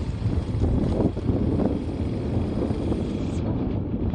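A vehicle running on the move, with steady low rumbling and wind buffeting the microphone.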